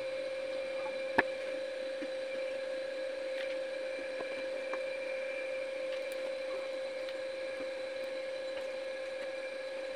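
A steady hum with one clear mid-pitched tone, with a few faint clicks, the clearest about a second in.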